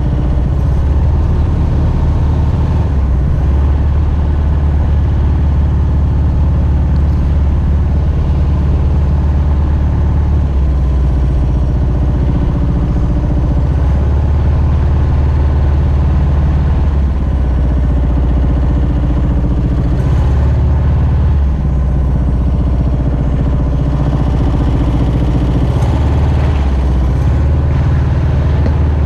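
Mokai jet boat's Subaru EX21 single-cylinder engine running steadily through its water-cooled muffler, with small rises and falls in speed.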